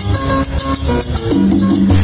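Loud Latin dance music with drums and a heavy, sustained bass line, played over a car audio system with trunk-mounted subwoofers.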